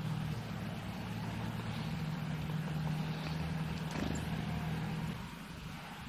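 A motor engine running steadily nearby, a low hum that fades away about five seconds in.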